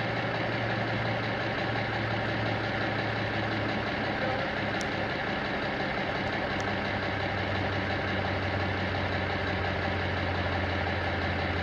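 A military 6x6 truck's diesel engine idling steadily, its note dropping slightly about seven seconds in.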